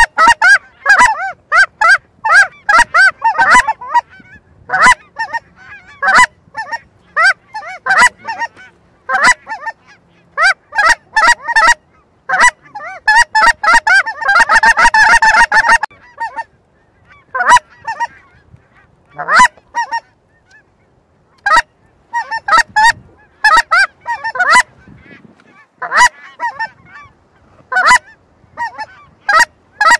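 Geese honking: many short, loud honks in quick runs, densest about halfway through, then sparser for a few seconds before picking up again.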